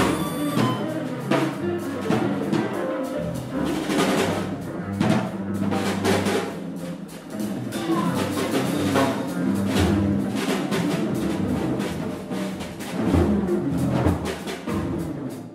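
Small jazz band playing live: a drum kit struck with busy, irregular hits over bowed violin, saxophone and double bass.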